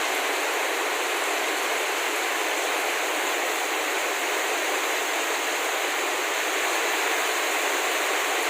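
Heavy tropical rain falling: a steady, even hiss of a downpour with no let-up.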